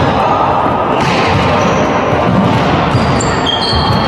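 Sports-hall noise during an indoor volleyball game: ball hits and players moving and calling on court, with a few short high squeaks.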